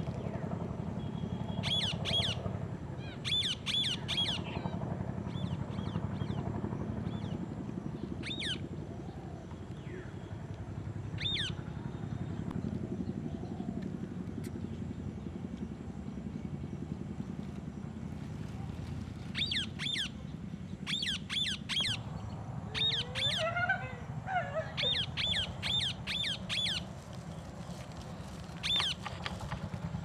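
Rose-ringed (ringneck) parakeet giving short, shrill screeching calls in quick runs of two to six, with quieter gaps between runs, over a steady low hum.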